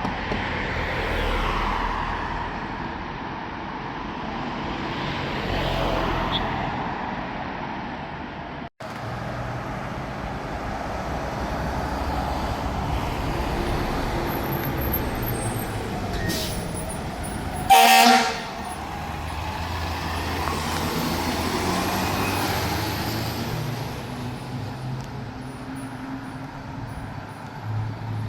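Fire apparatus engines running as the trucks move along the street, with one short, loud horn blast about eighteen seconds in.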